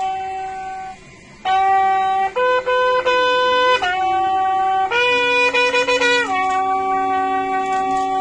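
Bugle sounding a salute call for a guard of honour: long held notes that step up and back down between a few pitches, after a brief break about a second in.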